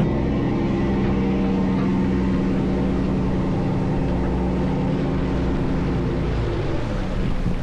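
Crab fishing boat's engine running steadily under way, with water rushing along the hull; the engine note shifts slightly near the end.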